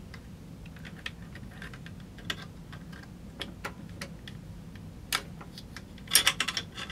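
Light metallic clicks and taps of AK-47 parts being handled in the receiver as the safety lever is fitted, with a quick run of louder clicks about six seconds in.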